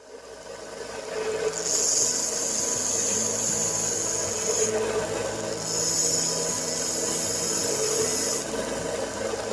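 1x30 belt sander with a 240-grit belt running, a steel ratchet part pressed against the moving belt in two passes, each a steady hissing grind over the motor's hum. The sound builds up over the first second or so.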